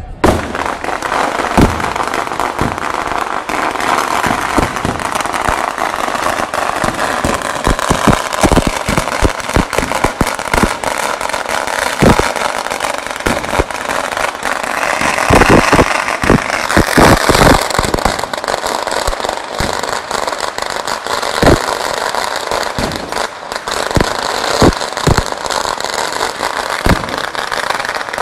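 Firecrackers going off in a long run: a continuous crackle broken by many sharp bangs, loudest and thickest about fifteen to eighteen seconds in.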